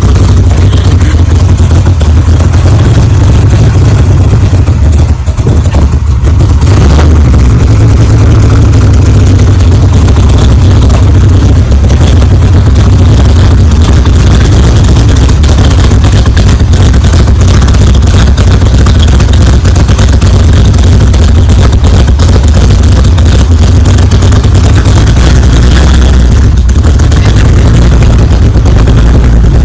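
Supercharged big-block Chevy V8 in a 1955 Chevy, running loud and mostly steady, with a brief dip about five seconds in.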